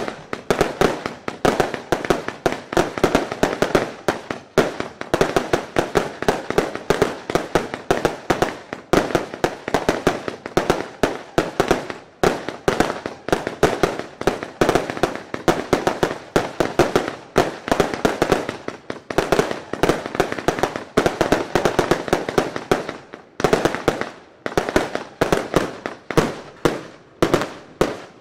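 A consumer salute battery (a J-Fireworks salute box) firing a rapid string of bangs, several a second. The string thins briefly about 23 seconds in and stops right at the end.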